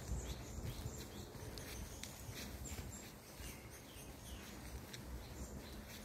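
Footsteps on a woodland path with phone-handling rumble, under many short, high bird chirps repeating throughout.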